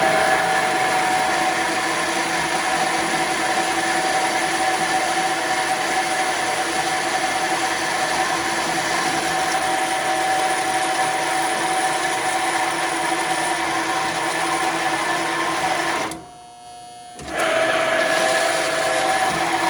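Horizontal metal-cutting band saw running and cutting through a SATA hard drive's metal casing: a steady mechanical whir with a held ringing tone. The sound drops out for about a second near the end, then resumes.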